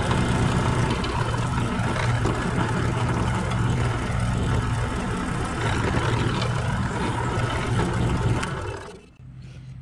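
Benchtop drill press running with a steady motor hum while a 1/8 inch twist bit drills into a wooden block. The cutting noise stops about nine seconds in, leaving the motor running more quietly.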